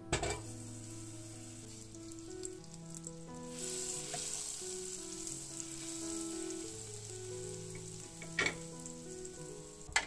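A cube of butter drops into a hot nonstick saucepan with a sharp knock and sizzles as it melts, louder from about three and a half seconds in while it is stirred with a wooden spatula. Two more sharp knocks come near the end, under soft background music.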